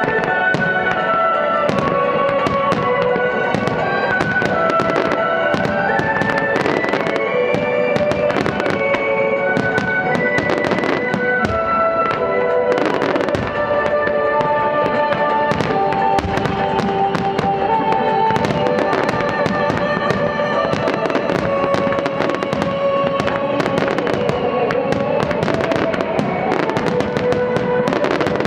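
Aerial fireworks shells, chrysanthemum-type, bursting one after another in a dense string of bangs and crackles. A melodic piece of music with long held notes plays alongside.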